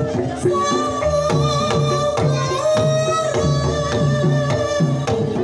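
Live Banyumasan gamelan music for tayub: kendang drum strokes about twice a second and bronze saron keys, with a sinden's long held sung notes over them from about half a second in.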